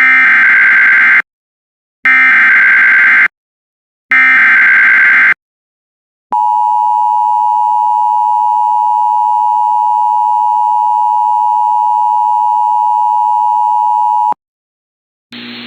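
Emergency Alert System signal for a severe thunderstorm warning. It opens with three SAME header data bursts, each about a second long with about a second between them. Then comes the two-tone EAS attention signal (853 and 960 Hz), held steady for about eight seconds and cut off sharply, and a hiss of broadcast noise comes in just before the end.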